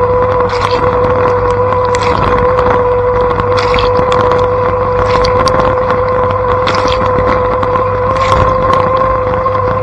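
Blanco dishwasher mid-wash, heard from inside the tub: water spraying against the interior over a steady pump-motor hum, with a splash of spray hitting roughly every second and a half.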